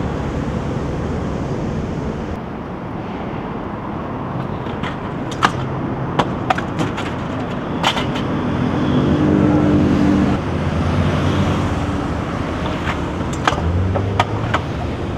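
Stunt scooter wheels rolling on pavement, with several sharp clacks from the scooter between about five seconds in and the end. A motor vehicle passes by partway through.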